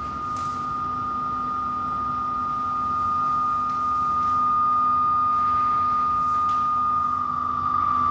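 A steady high electronic tone with a fainter low hum beneath it, slowly swelling in loudness, with a few faint clicks.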